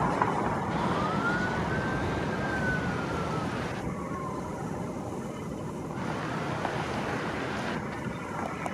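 An emergency vehicle siren in slow wails, each rising and then falling in pitch, over steady road traffic noise.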